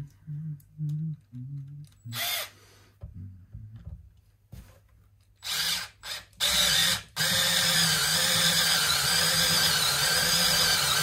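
Small cordless screwdriver driving a strap-button screw into a wooden guitar body: a few short bursts of the motor, then one steady run of about four seconds near the end as the screw is driven home.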